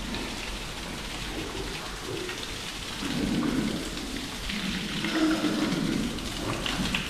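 Water from a garden hose spraying steadily onto piglets and the wet concrete floor of their pen, a continuous splashing patter like rain.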